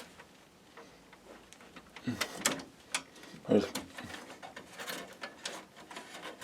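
Power-supply cables and parts being handled inside a PC case: scattered small clicks and rustles of cable and plastic. A person's voice murmurs briefly twice, about two and three and a half seconds in.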